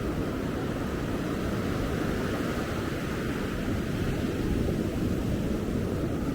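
Ocean surf washing steadily, heard as an even, mostly low noise, with wind on the microphone.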